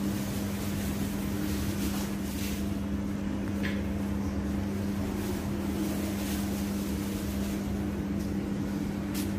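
A steady low machine hum, holding one even tone, with a few faint light clicks about two to four seconds in.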